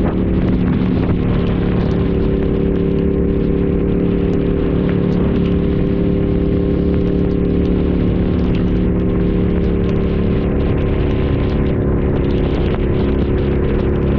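Motorcycle engine running at a steady cruise, with wind noise on the microphone and scattered light ticks of raindrops.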